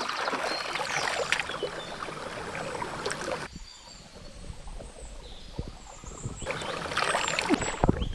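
River water splashing and churning as hands work through it, loud for the first three and a half seconds and again for about a second near the end, with a quieter stretch between where short high chirps come through.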